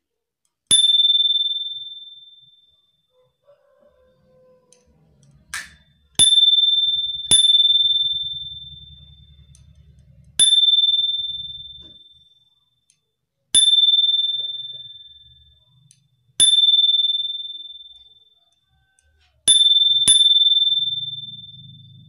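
Small dome-shaped bicycle bell on a handlebar, rung with single strikes of its thumb lever: eight high, clear rings, each fading out over about two seconds. Most strikes come a few seconds apart, with two pairs close together.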